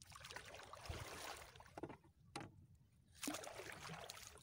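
Water splashing and sloshing against a wooden dugout canoe as a fishing net is hauled in and the paddle dipped. Two long bursts of splashing with a short sharp knock between them.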